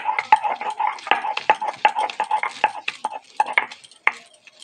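Stone roller (nora) pounding and grinding ginger and garlic on a flat shil grinding stone: rapid clacking, scraping strokes, several a second, stone on stone. The strokes thin out after about three seconds, then a few harder knocks follow.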